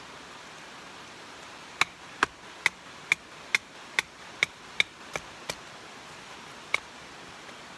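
A run of about ten sharp strikes with a slight ring, evenly spaced at about two a second, the last two softer, then one more strike about a second later, over a steady hiss.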